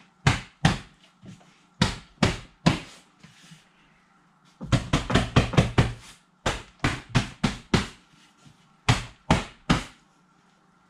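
Dull knocks in quick groups as the filled worm bag and its frame stand are jostled by hand: two, then three, then a fast rattling run of about a dozen, then about five, then three more near the end.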